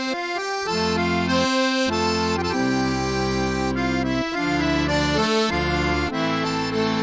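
Instrumental music with an accordion melody over sustained bass notes, starting abruptly.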